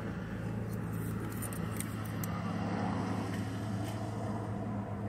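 Steady low hum of a motor vehicle engine running, with a few faint metallic clinks.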